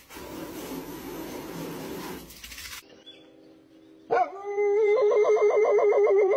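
Dog howling: a long, loud howl from about four seconds in, its pitch wavering rapidly up and down. Before it come a few seconds of hissy noise, then a short quiet gap.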